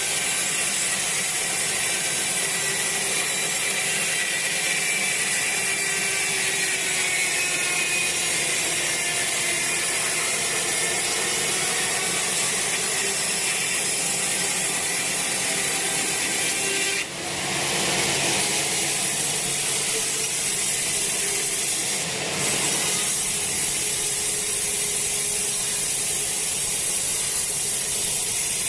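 Sawmill saw ripping a teak log lengthwise into beams: a steady, continuous cutting noise with faint machine tones, dipping briefly twice in the second half.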